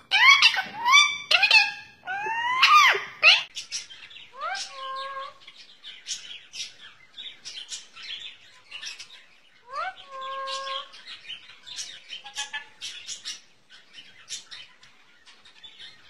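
Pet parakeets being kissed: a run of loud, quickly repeated squeaky calls in the first few seconds, then soft kissing smacks and beak clicks with two short drawn-out calls.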